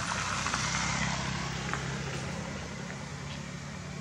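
A motor vehicle running, a steady low engine hum under a wash of road noise, loudest in the first couple of seconds and then slowly easing off.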